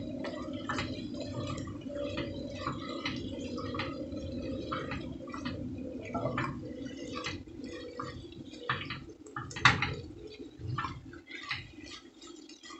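Silicone spatula stirring and scraping flour-coated chicken and onions in a nonstick saucepan: a run of irregular soft clicks and wet squishes over a steady low hum that fades near the end.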